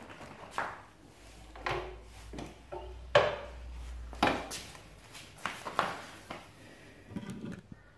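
Front fork of a Yamaha WR250F being pumped by hand, the suspension compressing and rebounding with a knock about once a second, as a test of whether the freshly cleaned fork seals still leak oil.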